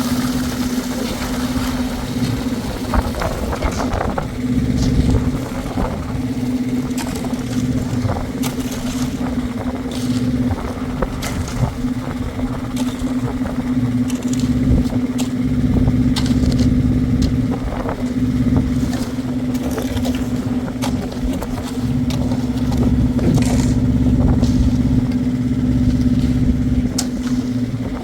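An engine running steadily at one even pitch under a low rumble, with scattered knocks and scrapes over it.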